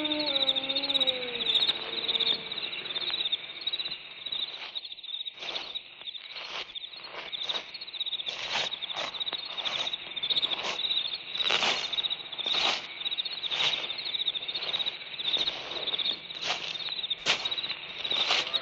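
Recorded night-time crickets chirring steadily, with sharper high calls about once a second over them. A long falling howl dies away in the first couple of seconds.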